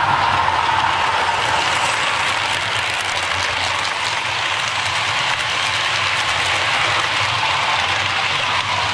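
Model railway trains running on the layout: a steady whirring rush of locomotive motors and wheels on the rails, with fine rapid clicking over it. A higher whine at the start fades away within the first second or two.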